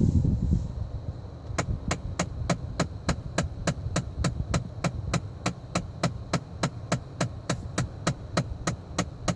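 Rapid, evenly spaced clicking from behind the dashboard of a 2014 Ford Fiesta, about five clicks a second, starting about a second and a half in, over a low steady hum. The owner identifies it as the HVAC blend door actuator motor, which sets the mix of outside and inside air.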